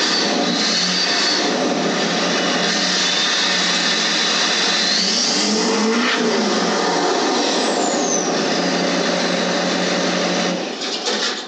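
An engine running steadily and loudly at an even speed, then shut off about ten and a half seconds in.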